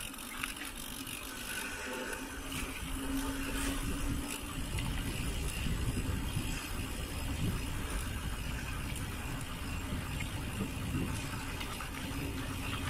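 Mountain bike being ridden: tyres rolling and the bike rattling over the ground, with wind rumbling on the microphone. It grows louder about four seconds in.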